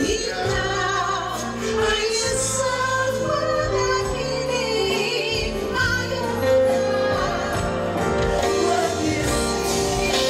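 Pop music from a band with a woman singing the melody over it.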